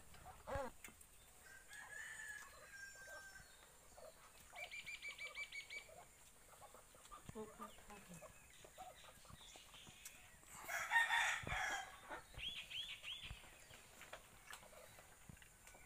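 A rooster crowing once, about eleven seconds in, the loudest sound. Small birds trill and chirp before and after it, over faint clicks.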